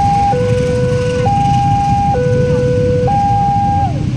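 Railway level-crossing warning siren sounding a two-tone signal, a higher and a lower tone alternating about once a second, over the low rumble of road traffic. Near the end the tone slides down and cuts off.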